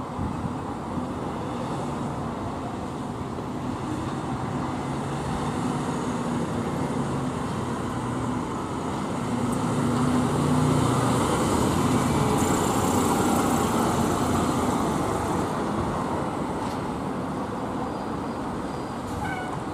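A fire engine's diesel engine running as the truck drives through and past, with road and traffic noise. It grows louder about halfway through as the truck passes closest, then eases off.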